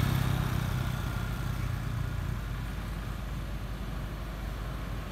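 Engine of a passing motor vehicle, a low rumble that fades away over the first couple of seconds and then settles into a quieter steady rumble.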